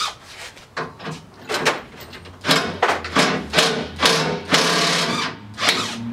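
A run of irregular knocks and clatters, some ringing briefly, coming faster and louder after about two and a half seconds.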